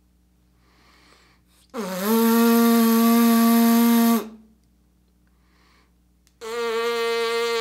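Trumpeter's lips buzzing a sustained note through an EMBOSURE aperture setter, twice at about the same pitch with a short breath before each. The first, with the tongue far back in the mouth, is louder, a big, diffuse sound lacking focus; the second, with the tongue placed far forward, is a very concentrated sound with high overtones.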